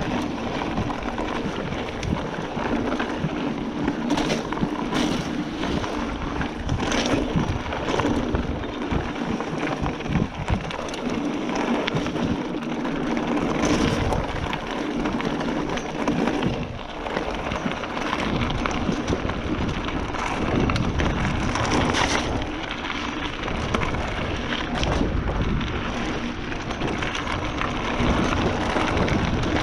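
Giant Fathom 1 29er hardtail mountain bike riding down a trail: a steady rushing noise of tyres and air, broken by frequent sharp knocks and rattles as the bike goes over bumps.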